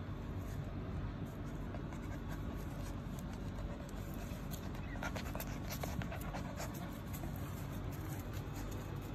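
Husky puppies play-fighting and scuffling on paving tiles, with dog breathing and a cluster of sharp clicks about five to six seconds in.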